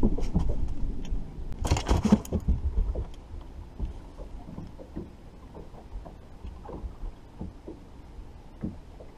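Ambient sound aboard a bass boat at rest on the water: wind buffeting the microphone with a low rumble and a short rushing burst about two seconds in, then quieter, with scattered light knocks and water lapping against the hull.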